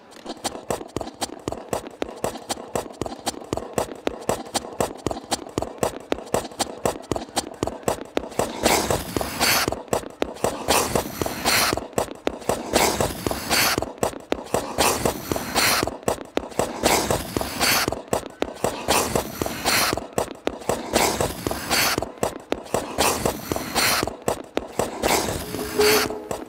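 Rhythmic percussive music with a fast, steady beat that starts suddenly. From about nine seconds in, sharp hissing strokes come roughly once a second, fitting ice-skate blades cutting and scraping the ice during the dance.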